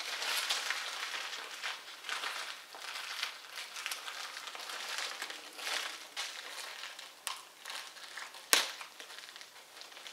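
A small clear plastic bag of hardware parts crinkling as it is handled, with one sharp click about eight and a half seconds in.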